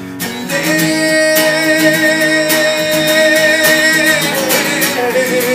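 A man sings one long held note with a slight waver over a strummed acoustic guitar. The note slides lower near the end.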